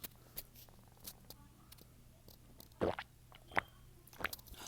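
Close-miked throat sounds of a person swallowing a drink: a few short, soft wet clicks and gulps spread through a mostly quiet stretch.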